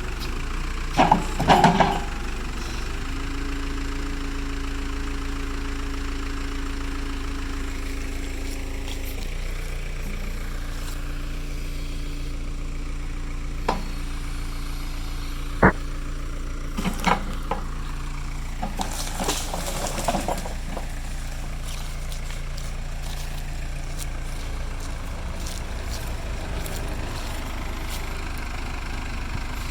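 Case 580E backhoe's diesel engine running steadily, with a held tone that steps down to a lower pitch about nine seconds in. Metal clanks and knocks from the backhoe at work cut in: a cluster about two seconds in, a sharp single knock near the middle, and more around seventeen to twenty seconds in.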